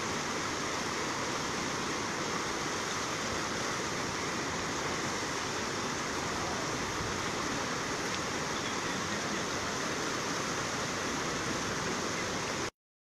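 Flooded river rushing past its bank, a steady, even hiss of moving water. The sound cuts off suddenly near the end.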